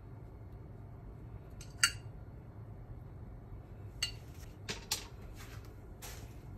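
Spoon and small sauce dish clinking: one sharp, ringing clink about two seconds in, then a few lighter knocks and taps in the second half, over a low steady hum.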